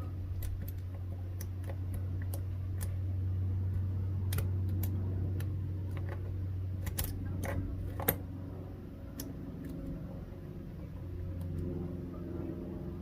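Irregular light metallic clicks and scrapes of a lock pick working the serrated security pins of a GEGE AP1000 euro cylinder, with one louder click about eight seconds in. A steady low hum runs underneath.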